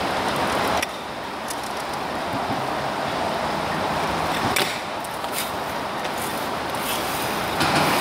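Freeline skate wheels rolling on asphalt: a steady rough hiss that shifts in level about a second in and again just past halfway, with a few sharp clicks of the skates knocking.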